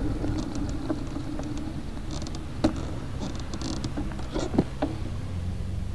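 Steady road and wind rumble from a moving bicycle, picked up by a Fly6 rear camera light mounted on it, with scattered clicks and rattles, two of them louder about two and a half and four and a half seconds in.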